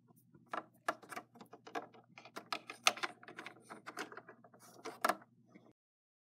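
Irregular clicks and taps of small plastic toys being handled: a Littlest Pet Shop figure knocked along and a toy playhouse's plastic door swung open and shut, with a sharper click about five seconds in.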